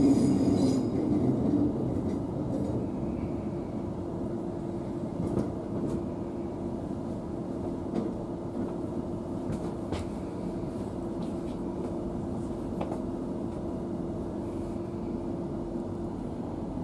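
Inside a Queensland Rail electric suburban train running slowly into a station: a steady low hum from the drive over the rumble of the wheels on the rails, with a few light clicks over the rail joints. A high wheel squeal fades out in the first second, and the hum stops shortly before the end as the train draws up at the platform.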